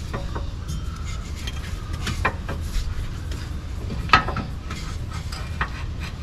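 Hands working an Airbag Man high-pressure air bag into a rear coil spring: rubber rubbing and scraping against the coils, with scattered light clicks and two sharper knocks about two and four seconds in, over a low steady rumble.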